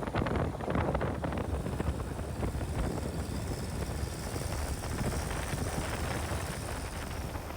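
ATV engine running steadily during a ride, with wind buffeting the microphone.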